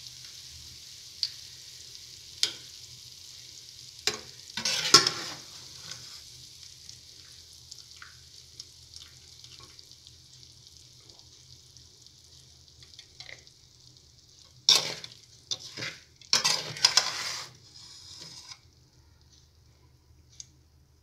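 Hot oil sizzling around diced potatoes and green chillies in a metal kadhai just taken off the stove, dying away and stopping near the end. A metal slotted spoon clinks and scrapes against the pan in a few short bursts, loudest about five seconds in and again about three-quarters of the way through.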